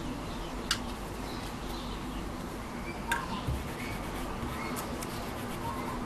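Fingertips and a paintbrush rubbing over a wet matte medium transfer, scrubbing the softened paper fibres off the image. There are a couple of sharp clicks and faint short squeaks over a steady low hum.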